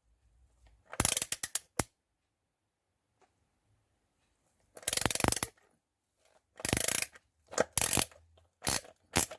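Ratcheting screwdriver's pawl clicking in short rapid bursts as the handle is turned back between driving strokes, with pauses between the bursts and several coming close together near the end.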